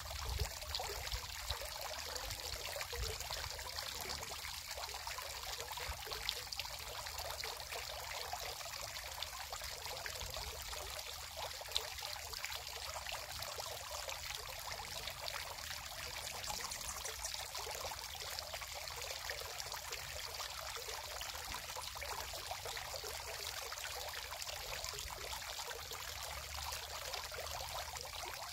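Steady rushing hiss, like running water, with a faint low rumble underneath.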